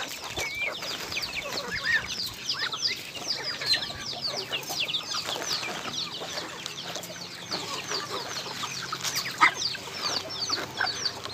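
A flock of young chicks and ducklings peeping constantly: many overlapping short, high chirps, each falling in pitch. A single sharp knock comes about nine seconds in.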